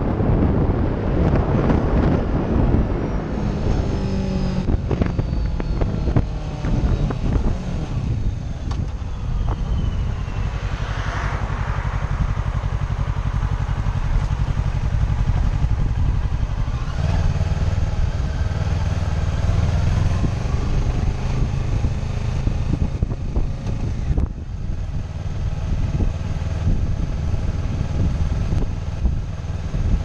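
Kawasaki sport motorcycle engine running under way, with wind buffeting the helmet-mounted microphone. The engine note falls over the first few seconds, then holds steady.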